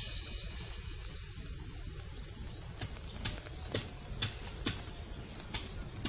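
Night-time outdoor ambience: a low steady rumble under a faint high insect-like hum. About halfway through, regular sharp clicks begin, about two a second, like ticking.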